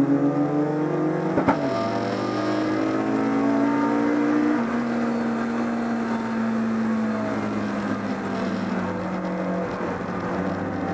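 BMW 318is race car's four-cylinder engine heard from inside the cockpit, revving up under acceleration. About a second and a half in there is a sharp clack at a gear change and the pitch drops, then the engine climbs again. From around four and a half seconds the engine note falls slowly as the car slows.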